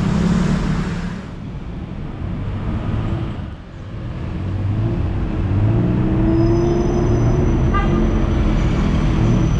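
Street traffic: engines of passing cars and motorbikes over steady road noise, with one engine rising in pitch as it speeds up about six seconds in.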